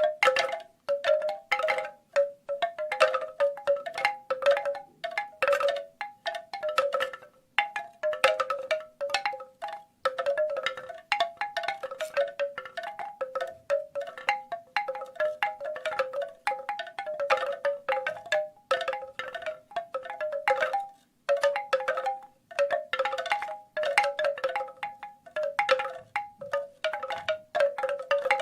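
Bamboo wind chimes, their tubes clacking together in irregular clusters of knocks, each with a short pitched ring, and a few brief pauses.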